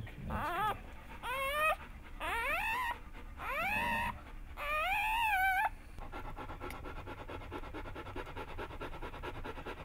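A newborn Bernese Mountain Dog puppy crying: five high squeals that rise and fall, each longer than the last, stopping about six seconds in. Softer, steady panting follows.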